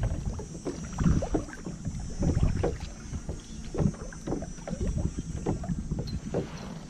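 Kayak paddle strokes: the blade dipping and pulling through lake water, with splashes and drips off the blade, over some wind on the microphone.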